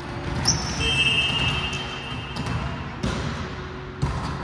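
A volleyball referee's whistle sounds one steady, shrill blast of about a second and a half, signalling the serve, in an echoing gym. Before it a sneaker squeaks once on the hardwood floor, and near the end the volleyball bounces twice on the court as the server prepares.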